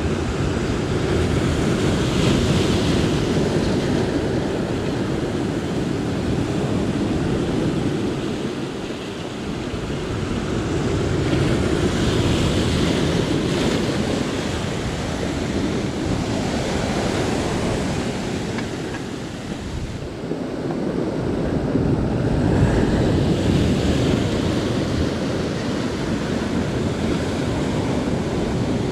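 Sea surf washing against the shore, a steady rush that swells and eases as each wave comes in.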